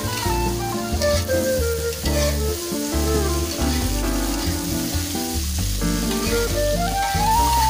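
Green beans and carrots sizzling in a hot wok while a spatula stirs them, over background music with a melody and a stepping bass line.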